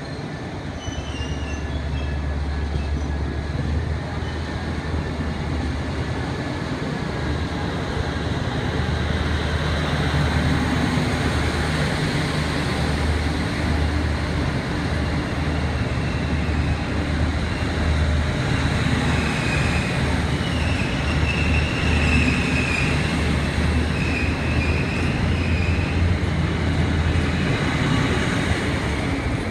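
Diesel engines of a coupled pair of Trenitalia Minuetto diesel multiple units (MD 025+028) running, a steady low rumble that slowly grows louder as the train gets under way. A faint squeal of wheels on rail comes in about two-thirds of the way through.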